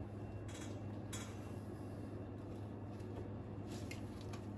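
A few faint light clicks and rustles of parts being handled by hand, over a steady low hum.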